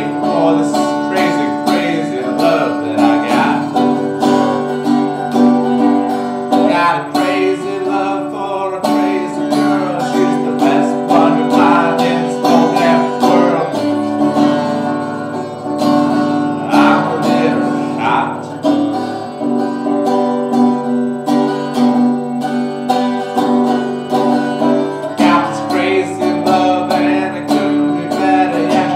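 Resonator guitar strummed in a steady rhythm, playing chords that change every few seconds.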